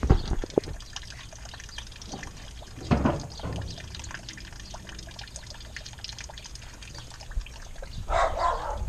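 Handling noises from an old aluminium boat being picked through: a few sharp knocks right at the start, a heavier thump about three seconds in, and a brief scuffling rustle near the end, as a rotted wooden deck panel and debris are moved around.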